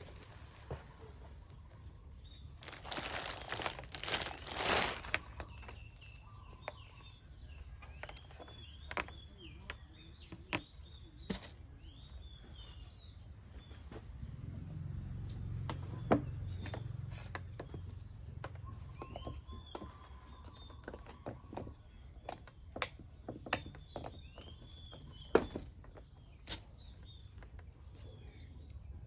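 Scattered clicks and knocks with a rustling burst of packaging a few seconds in, the sounds of unpacking by hand, while small birds chirp faintly in the background.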